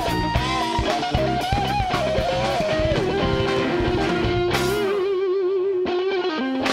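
Live electric blues band playing, led by an electric guitar solo with bent and sliding notes. About five seconds in, the bass and drums drop out while the guitar holds a wavering note, and then the band comes back in.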